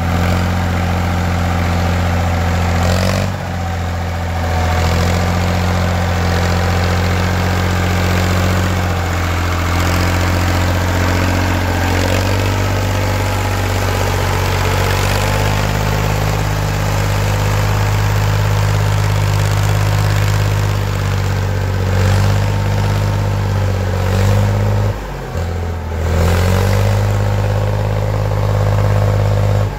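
Farm tractor engine running steadily as it drags a box blade through a muddy driveway, its pitch shifting slightly a few seconds in and dropping out briefly near the end.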